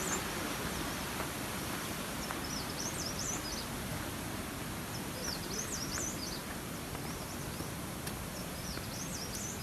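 A bird repeats a short, high, chirping phrase about every three seconds over a steady rushing noise.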